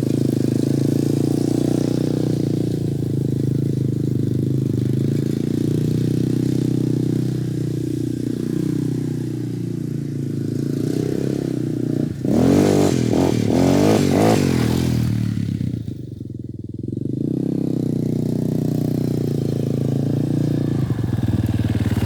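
Yamaha Raptor 250 ATV's single-cylinder four-stroke engine running at a steady speed, then revving hard about halfway through, its pitch climbing and falling, before dropping off briefly and settling back to a steady run.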